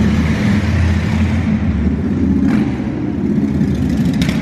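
Cruiser motorcycle engine running loud through its black exhaust pipes as the bike rides slowly past, heard in an underground concrete parking garage.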